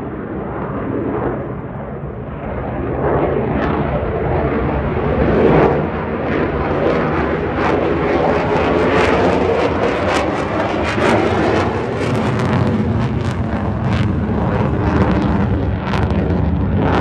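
Lockheed Martin F-35A fighter's single Pratt & Whitney F135 turbofan overhead during a high-G manoeuvre: a loud, continuous jet noise that swells about three seconds in, with sweeping shifts in pitch and a sharp crackle through the second half.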